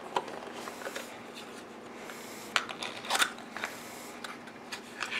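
Handling noise from unpacking a board-game miniature: a few short clicks and rustles of its packaging, the strongest a little after three seconds in.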